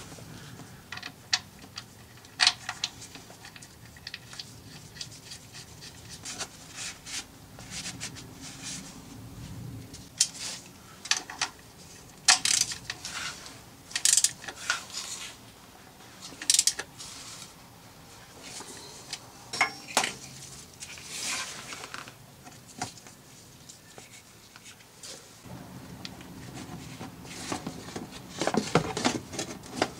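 Ratchet and socket working loose the fill plug on a Honda S2000 transmission: irregular sharp metallic clicks and clinks of the tool and plug.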